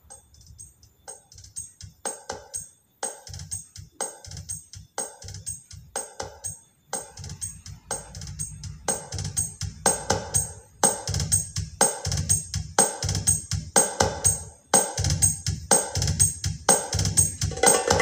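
Percussion-led music with a steady beat of drum and tambourine strikes, played through a dual 15-inch RCF loudspeaker cabinet. It starts faint and builds steadily louder.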